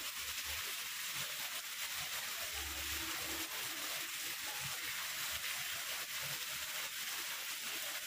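Steady rain falling on garden plants and gravel: an even, unbroken hiss of drops.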